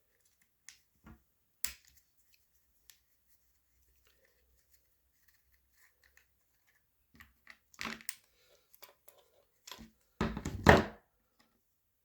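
Small parts of a paintball marker's magazine release being handled and worked loose: scattered light clicks and taps, a few quick knocks about eight seconds in, and a louder scraping clatter about ten seconds in.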